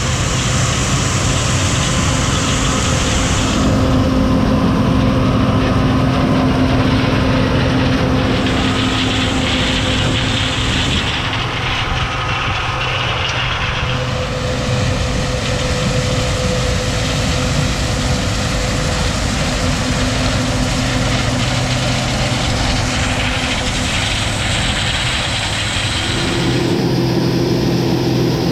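Diesel engines of corn-harvest machinery running steadily, in several clips that change abruptly every few seconds.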